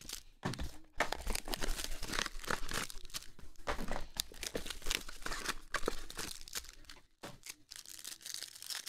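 Plastic wrapping on a box of football trading cards and its card packs being torn open and crinkled by hand: a dense crackling that thins out and quietens near the end.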